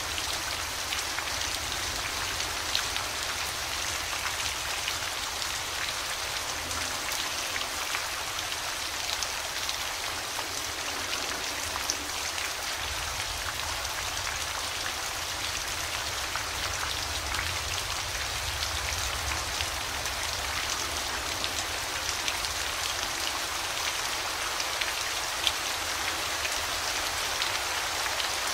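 Steady rain falling, a dense even patter of drops with many small individual drop ticks, over a faint low rumble.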